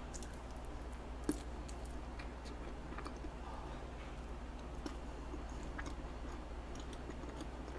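A person chewing soft cheesecake, faint, with scattered small clicks; one click about a second in is a little louder.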